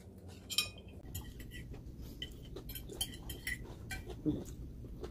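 Scattered light clinks and taps of cutlery against plates and serving dishes.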